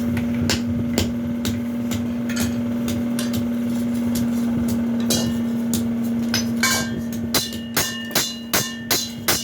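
Hammer blows on a metal sound bowl as it is being shaped, at first irregular over a steady low hum. In the last couple of seconds they become a fast, even beat of about two to three blows a second, each leaving a clear metallic ring.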